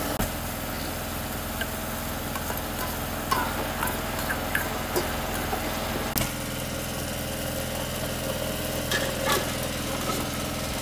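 Tomato stew simmering and bubbling in a pot over a wood fire, with occasional clinks of a metal ladle against the pot, over a steady engine-like hum.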